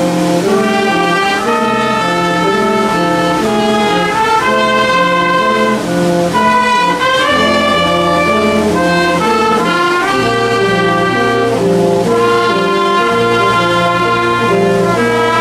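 Wind band playing a tune together: trumpets and clarinets carry the melody with an alto saxophone, over a tuba bass line that steps between low notes.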